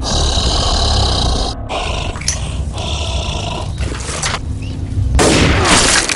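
Growling and snarling of zombie-like infected people, trailer sound design over a loud low rumble, growing louder near the end.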